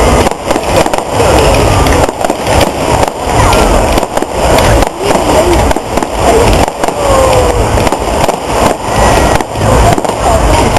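Fireworks display going off, a dense run of crackling pops and bangs, loud enough to overload the recording.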